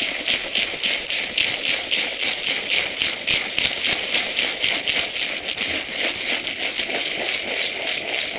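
Gravel and tap water rattling and sloshing inside a sealed plastic coolant expansion tank as it is swirled round by hand, in a steady rhythm of about five rattles a second. The loose gravel is scouring old coolant residue and sludge off the tank's inner walls.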